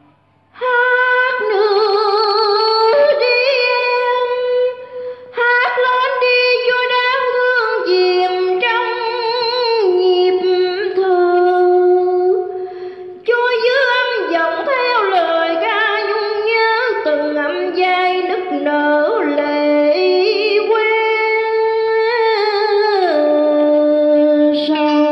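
A woman sings a Vietnamese song into a microphone. She holds long notes with a wavering vibrato, in phrases broken by two short pauses, about 5 and 13 seconds in.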